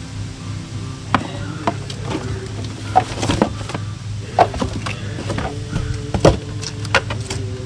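Cardboard packaging being handled as an electric chainsaw is unboxed: a series of sharp knocks and scrapes as flaps, inserts and parts are moved, over steady background music.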